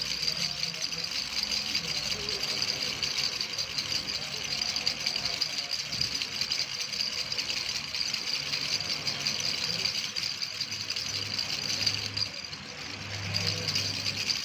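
Continuous fast rattling over a faint low hum; the rattling weakens briefly about twelve seconds in.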